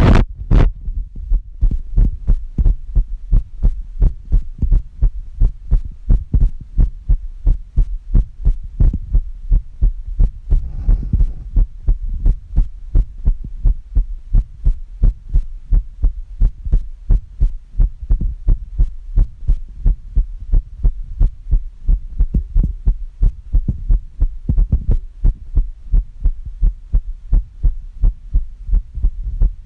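A human heartbeat recorded through a phone heartbeat app: a steady, regular run of beats over a constant low hum.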